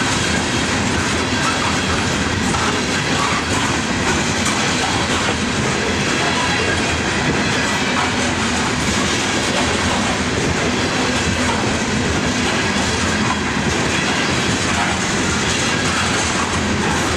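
Freight train of open-top cars rolling steadily past: a continuous rumble of steel wheels on rail with occasional faint clicks.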